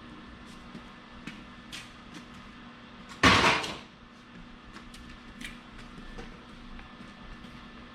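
A single loud clatter about three seconds in, fading out within half a second, over a steady low hum with scattered faint ticks and clicks.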